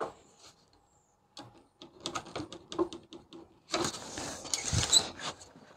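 Handling noise from a steel tape measure and pen on the insulation board: scattered small clicks and scrapes, then a longer rattling stretch ending in a sharp clack about five seconds in.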